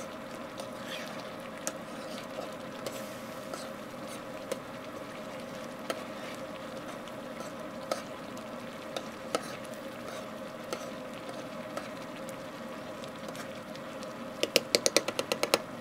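Chili simmering and bubbling in a steel frying pan over hot forge coals while it reduces, stirred with a spoon that scrapes and clicks against the pan now and then, over a steady hum. Near the end, a quick run of about a dozen sharp clicks.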